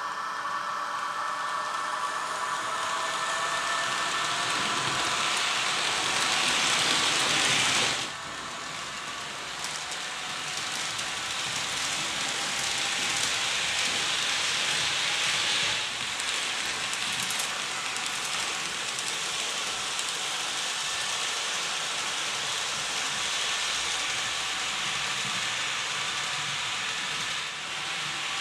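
Roco H0 model of an SBB Re 460 electric locomotive running around the layout with double-deck coaches: a steady hiss of running noise with a faint whine that rises in pitch over the first few seconds. The sound changes abruptly about 8 and 16 seconds in and dips briefly near the end.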